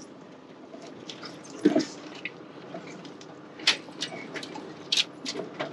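Branches and leaves scraping and slapping against a Toyota 80 series Land Cruiser as it pushes along an overgrown track, heard from inside the cab over a low steady engine rumble. Sharp scratches and snaps come about a second and a half in, near four seconds and twice around five seconds.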